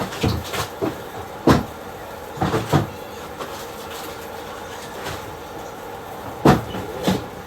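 Kitchenware being handled: a series of clunks and knocks, the loudest about one and a half seconds in and about six and a half seconds in, over a steady fan hum, likely the stove hood fan.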